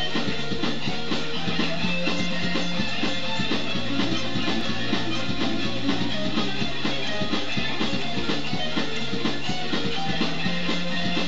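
Stratocaster-style electric guitar playing a rock lead part over a backing track with drums and bass, at a steady level with a regular beat.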